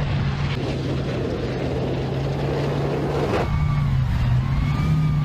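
Main battle tank driving over rough, muddy ground, its engine running with a steady low note. About three and a half seconds in the sound changes abruptly, and a thin high whine rides over the engine.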